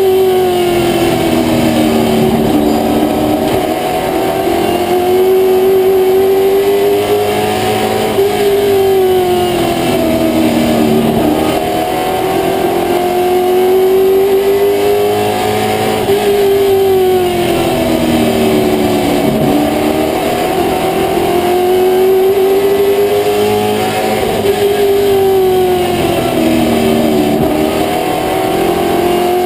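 Limited Late Model race car's V8 engine at racing speed, heard from inside the cockpit: the engine note drops as the driver lifts for each turn and climbs again on the straights, about every eight seconds.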